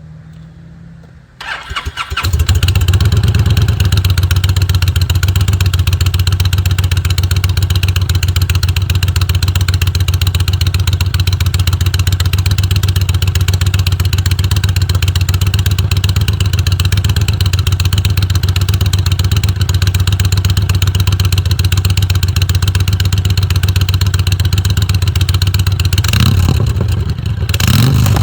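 A 2020 Honda Fury's V-twin engine, fitted with a 2-into-1 burner slip-on exhaust, starts about two seconds in and then runs at a loud steady idle. Near the end there are two brief throttle blips.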